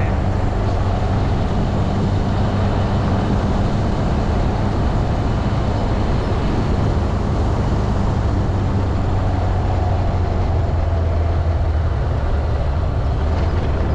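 Motorcycle engine running at a steady cruise, with wind and road noise from the moving bike; the engine note drops slightly about nine seconds in.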